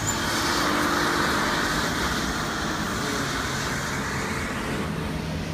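A motor vehicle passing close by: engine and tyre noise swell right at the start, then slowly fade over the next few seconds.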